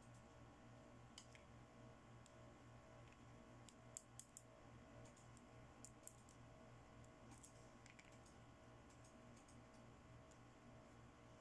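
Near silence with faint, scattered clicks and taps of small plastic toy accessories being handled, over a low steady hum.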